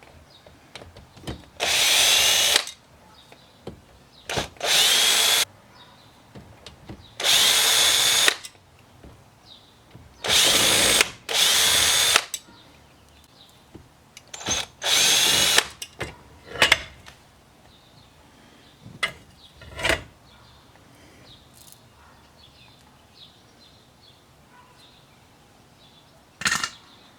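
Cordless power driver spinning out the six steering-wheel screws: six short bursts of motor whine, each rising in pitch as it spins up, followed by a few sharp clicks and knocks.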